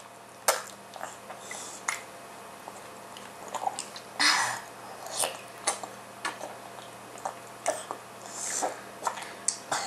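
A baby eating: wet chewing and mouth sounds, with scattered sharp clicks of a spoon against the bowl.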